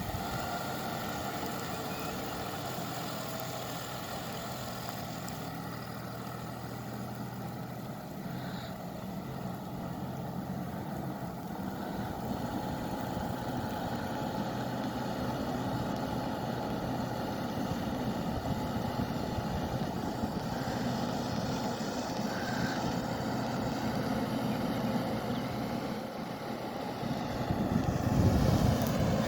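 John Deere 5405 tractor's common-rail diesel engine running steadily as the tractor drives through flood water. It grows gradually louder and is loudest near the end.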